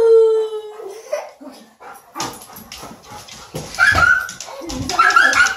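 Doodle dog letting out a long, slightly falling howling whine at the start, then knocks and scrabbling on the floor from about two seconds in, followed by short high yips near the end.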